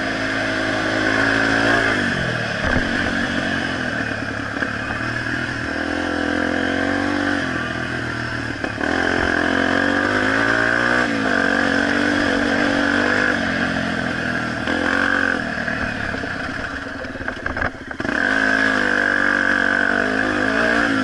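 Honda XR250 Tornado's single-cylinder four-stroke engine heard from on the bike, revving up and down as the rider works the throttle and gears around the dirt track. The engine drops off briefly several times, most clearly about three-quarters through, then picks back up.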